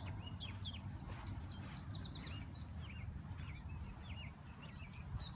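Songbirds chirping: many short, high calls scattered throughout, with a quick run of rapid notes about two seconds in, over a low steady rumble.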